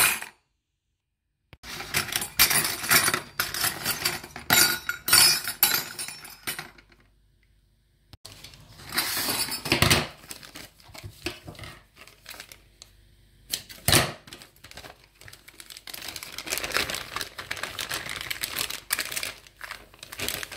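Stainless-steel piping nozzles clinking and clattering together as a hand rummages through a plastic box of them, then a thin clear plastic piping bag rustling and crinkling as it is opened and a nozzle is pushed into it, with a sharp knock about two-thirds of the way through.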